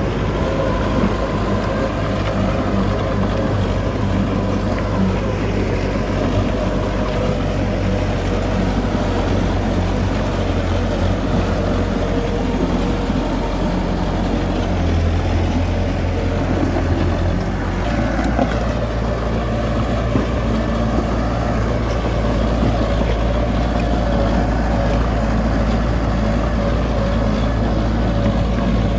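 Heavy diesel earthmoving machinery running steadily, with its low engine note shifting a couple of times midway.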